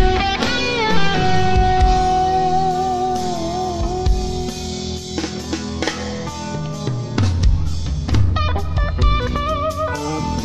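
A live rock band: a lead electric guitar holds a long note with a wavering vibrato, then plays bent and sliding notes near the end, over drums and bass guitar.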